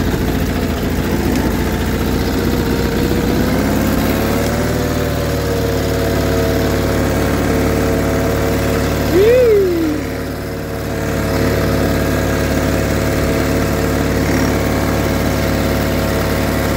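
John Deere 318 garden tractor's Onan twin-cylinder engine running steadily while driving, its pitch rising slightly about four seconds in. A short squeal rises and falls about nine seconds in, and the engine note briefly drops just after.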